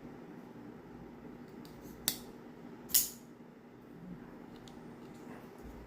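Folding pocketknife being flipped open and snapped shut: two sharp metallic clicks about a second apart, with a few faint ticks just before, over a low steady hum.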